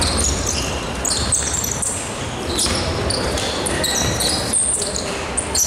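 Basketball game play in a large gym: the ball bouncing on the hardwood court and sneakers squeaking in short, high-pitched chirps, with scattered voices calling out, all echoing in the hall.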